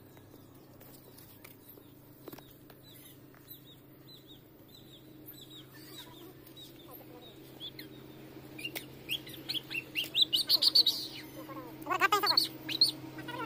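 Small birds chirping, faint at first, then a quick run of louder chirps in the last few seconds, over a faint steady low hum.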